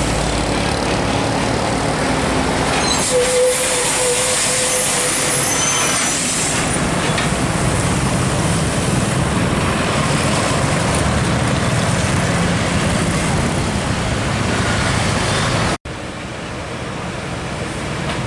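Heavy diesel trucks and other road traffic going by, engines running steadily. About three seconds in, a hiss of released air lasting a few seconds, typical of truck air brakes.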